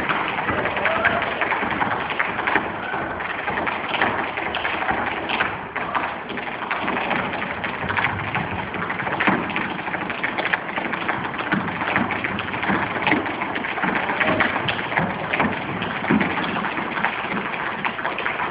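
Tap shoes striking a stage floor in an unaccompanied tap solo: a dense, irregular stream of quick metal clicks and heavier strikes.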